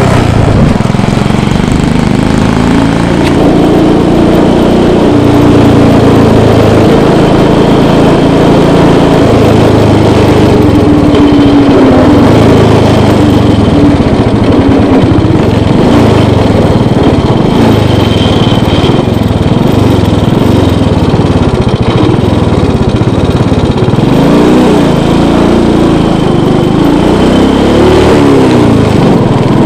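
1952 Guiller scooter's small engine running loud while riding, its pitch drifting up and down with speed, with a few quick falls and rises near the end.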